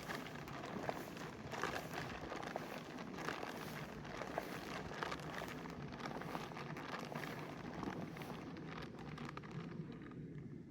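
Footsteps crunching and scuffing irregularly over rocks and brush, over the steady rush of stream water. The crisp high part of the sound thins out about two seconds before the end.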